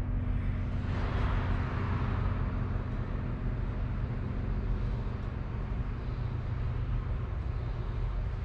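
Steady low mechanical hum, unchanging, with a faint hiss over it.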